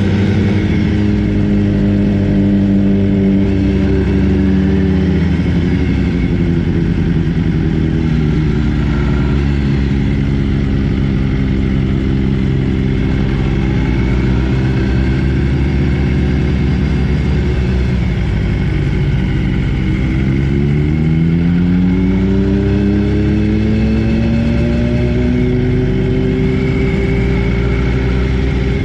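BMW motorcycle engine heard onboard while riding. Its revs fall over the first several seconds and run low for a while, then climb again about two-thirds of the way through and hold steady.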